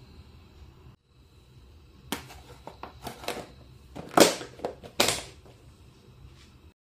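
Clear plastic food container's lid being pressed down by hand: a run of sharp plastic clicks and knocks against the wooden table. The two loudest snaps come in the second half.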